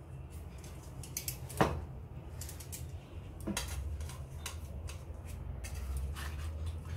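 Metal cooking utensils clinking and scraping against a frying pan, with a sharp clack about one and a half seconds in and another smaller one about halfway through.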